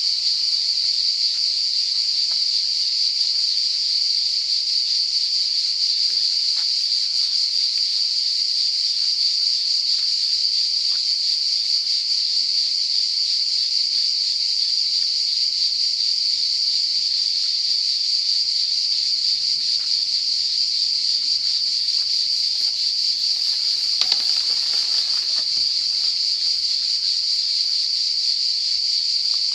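Cicadas singing in a continuous high-pitched buzzing chorus that holds steady throughout. About 24 seconds in there is a brief rustle.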